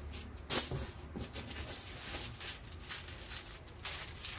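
Plastic packaging rustling and crinkling as it is handled, with a sharp, louder crackle about half a second in, over a low steady hum.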